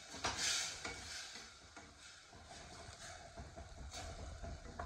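Tadka of tomatoes and peas sizzling quietly in a pan while a spoon stirs and scrapes it. A short, louder hiss comes about half a second in, and a single click about four seconds in.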